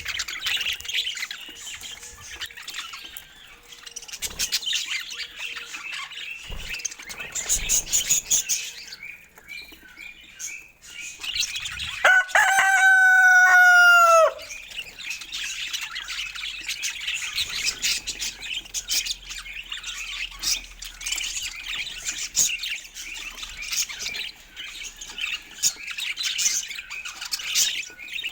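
Budgies chirping and chattering continuously. About twelve seconds in there is one loud, long call lasting two seconds or so, which drops in pitch at its end.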